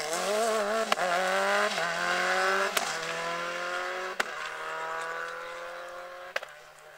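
Subaru Impreza rally car's turbocharged flat-four engine accelerating hard away through several upshifts, the pitch climbing in each gear and each change marked by a sharp crack. It fades steadily as the car drives off into the distance.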